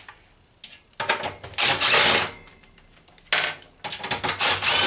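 Cordless drill-driver running in several short bursts of up to about a second each, backing screws out of a steel computer case, with metal clicks and clinks in between.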